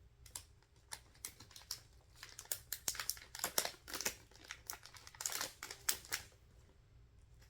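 Packaging crinkling and small nail-kit items tapping and clicking as they are handled and sorted, a busy run of rustles and taps that dies down about six seconds in.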